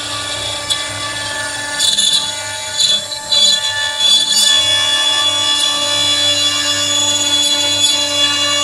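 CNC router spindle whining steadily as the cutter mills ash wood, with a few short rasps of cutting noise in the first half.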